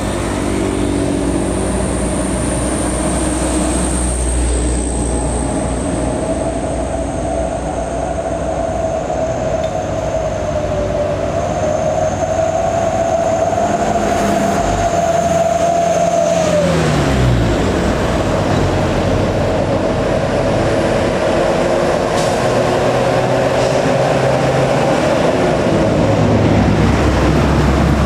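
Heavy diesel truck engines roaring up a steep grade under load, with a steady low rumble and a high whine over it. About 17 seconds in, one engine's note drops sharply, and another falls away near the end.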